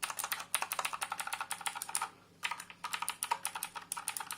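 Rapid typing on a Redragon Varuna mechanical keyboard, each keypress giving a sharp click. The typing stops for a moment a little past two seconds in, then carries on.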